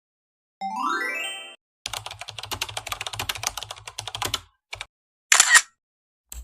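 A run of stock sound effects: a short rising sweep of several tones, then rapid computer-keyboard typing for about two and a half seconds, then a single click and a brief loud hissing burst.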